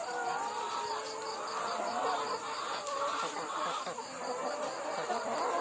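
A flock of caged brown laying hens calling, many soft wavering calls overlapping, over a steady high insect trill, likely crickets.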